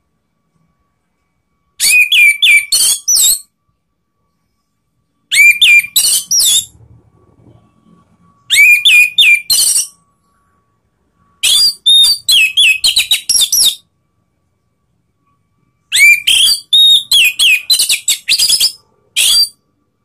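Orange-headed thrush singing in five loud phrases of rapid whistled and chattering notes, each one to three seconds long, with pauses of about two seconds between them.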